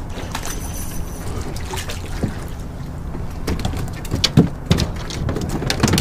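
A steady low rumble with faint water sounds as a kayak sits at a dock. From about three and a half seconds in comes a run of small clicks and knocks as rod and fishing gear are handled against the plastic hull.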